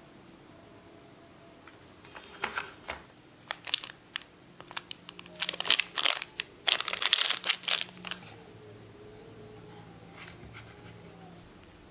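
Clear plastic packaging crinkling as it is handled in the fingers: a run of sharp crackles, thickest and loudest in the middle few seconds, then dying away to faint rustles.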